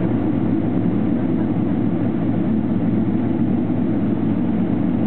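Boeing 777-300ER heard from inside its cabin: a steady, even rumble of its GE90-115B engines and airframe as it rolls along the ground.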